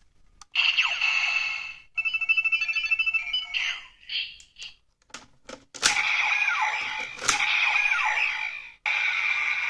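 Kamen Rider Zi-O DX Ziku-Driver toy belt playing its electronic sound effects through its small speaker: a burst of chiming tones, then a run of rapid beeps. A few sharp plastic clicks follow about five seconds in, then a looping standby jingle with swooping tones.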